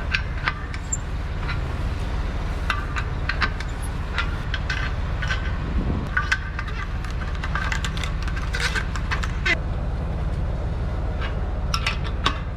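An engine running steadily, with scattered light metallic clicks and clinks over it.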